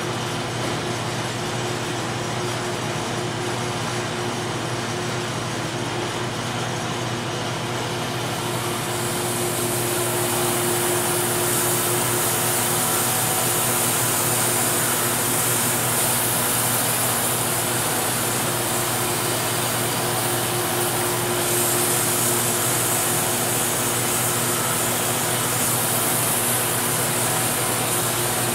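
Steady machinery hum; about eight seconds in, the louder, hissing sound of a Wood-Mizer LT50 electric band sawmill cutting through a box elder log joins and carries on.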